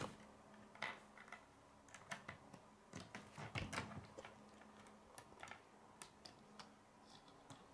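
Plastic K'nex rods and connectors faintly clicking and snapping together as they are handled and fitted, in irregular clicks a second or so apart.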